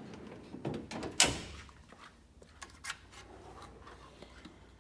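Metal tool chest drawer of a US General 72-inch roll cab sliding and shutting with one loud bang a little over a second in, followed by a couple of lighter metal clicks.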